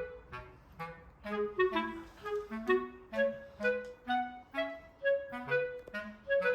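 Background music: a bouncy woodwind melody, clarinet-like, of short detached notes over a bass line.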